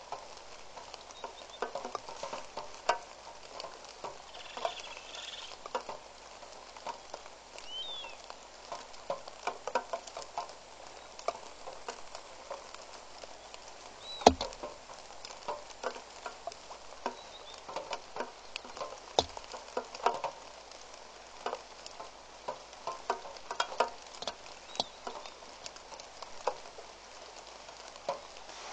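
Rain falling, with irregular taps of drops hitting close by and one sharper, louder tap about halfway through.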